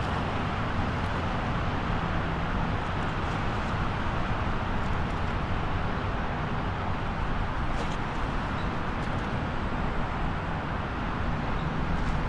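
Steady wash of highway traffic: continuous tyre and engine rumble from many passing vehicles, with a few faint ticks.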